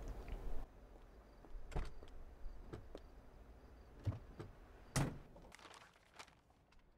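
Quiet car-interior sounds from the drama: about four soft thumps and clicks of a car door and a person settling into the seat, spaced about a second apart, with a few fainter ticks near the end.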